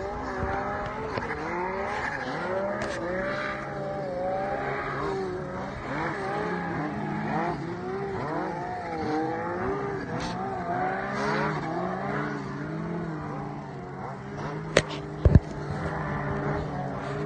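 Snowmobile engine climbing a steep chute, its revs rising and falling continually as the rider works the throttle. Two sharp knocks near the end are the loudest sounds.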